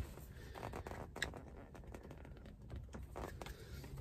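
Light, irregular clicks and taps from hands handling a car armrest and its plastic interior trim, with one sharper click about a second in.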